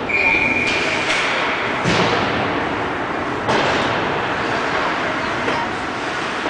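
Hockey pucks and sticks knocking in an ice rink, over a steady hiss. There are a few sharp knocks, the clearest about two seconds in and about three and a half seconds in. A short, steady high tone sounds during the first second.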